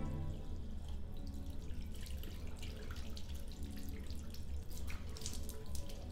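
Water running from a mixer tap into a ceramic washbasin, with irregular splashes and drips as someone washes at the basin, most of them a little before the end.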